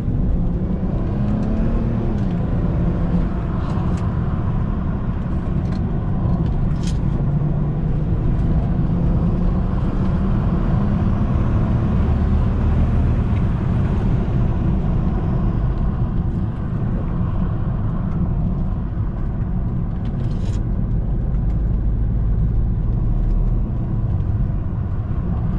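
BMW 335i's twin-turbo N54 straight-six running under way, with a steady engine drone and road rumble that shift a little in pitch. A few brief clicks sound about 4, 7 and 20 seconds in.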